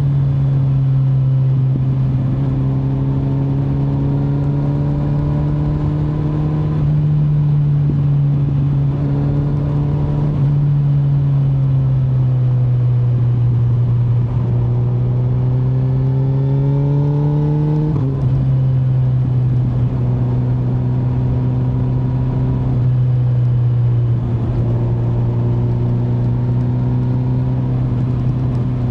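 Kawasaki Z900's inline-four engine under way on the road, its pitch rising gradually under throttle and dropping with a gear change several times, about seven, ten, eighteen and twenty-three seconds in. Wind rush runs underneath.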